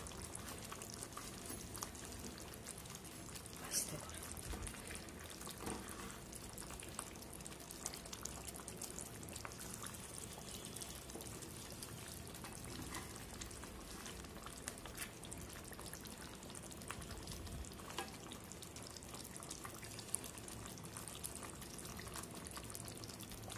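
Fish curry simmering in a kadai, the gravy bubbling steadily, with a few knocks and scrapes of a wooden spatula against the pan as the pomfret pieces are turned over.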